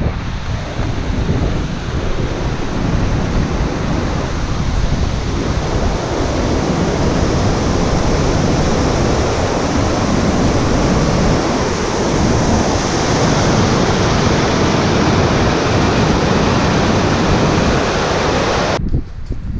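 Mountain stream rushing and splashing over rocks, a loud steady wash of water noise that cuts off abruptly near the end.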